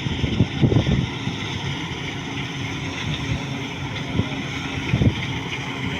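Combine harvester's diesel engine running steadily, with a few short knocks near the start and about five seconds in.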